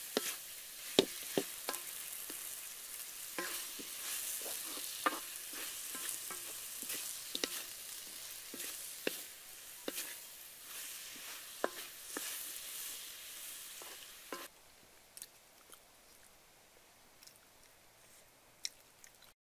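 Potatoes and coconut frying in a wok, sizzling while being stirred, with sharp clicks of the stirring utensil striking the pan. The sizzling stops about 14 seconds in, leaving a quieter background with a few faint clicks.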